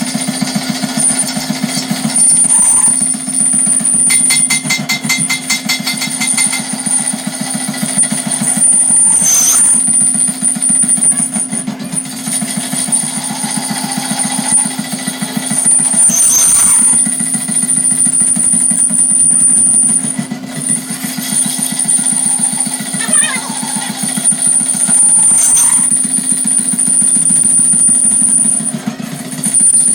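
Workshop machinery running continuously with a fast rattling pulse and a steady high whine that dips briefly several times.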